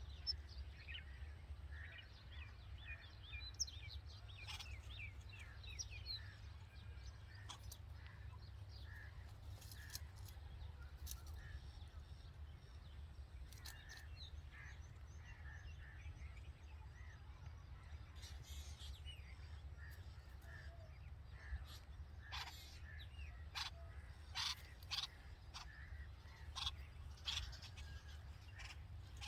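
Red-vented bulbuls chirping at the nest: many short chirps throughout, with a run of sharper calls near the end, over a steady low rumble.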